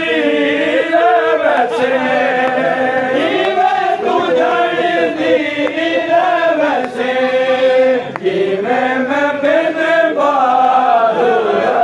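A group of men chanting a noha, a Shia Muharram mourning lament, together in long, drawn-out wavering phrases.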